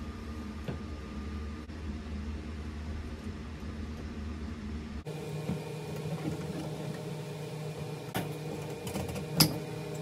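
A steady mechanical hum with the sound of a small room, its tone changing abruptly about five seconds in, with two sharp clicks near the end, the second the loudest.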